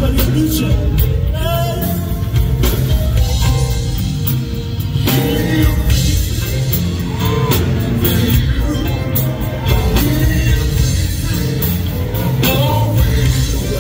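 Live gospel vocal group performing with a full band: a lead singer sings over bass, drums, keyboard and electric guitar, with a steady heavy bass line and regular drum beat.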